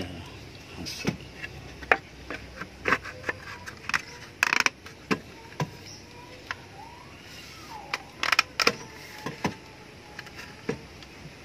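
Irregular clicks and knocks of a wooden spear-gun barrel and its handle being handled and fitted together, with the loudest knocks about halfway through and again near two-thirds.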